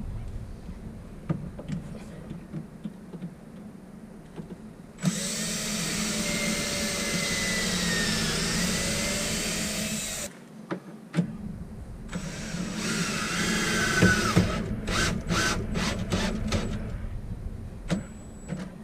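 Power drill driving long screws through the fridge into its cabinet: one run of about five seconds whose pitch dips and recovers, then a shorter run of about two seconds, followed by a few sharp clicks.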